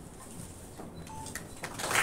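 Quiet room with a few faint clicks, then a small audience breaking into applause near the end, the clapping swelling quickly.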